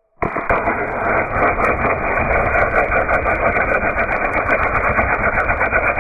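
Aerosol can punctured by a .177 air-rifle pellet and venting its contents: a loud hiss that starts suddenly about a quarter second in and keeps going steadily, with a fine crackling sputter through it.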